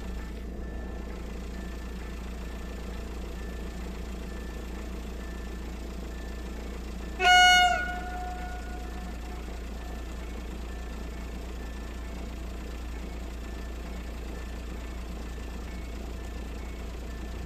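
A single short, high train horn blast about seven seconds in, over a steady low rumble of wind and distant noise.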